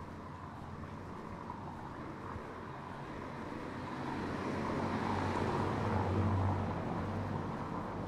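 A motor vehicle passing on the street: engine hum and tyre noise build up, are loudest about six seconds in, then fade.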